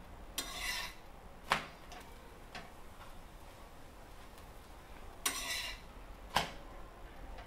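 Steel spatula scraping across an iron tawa under a paratha, each scrape followed by a sharp clack of metal on the pan. This happens twice, the second time as the paratha is flipped.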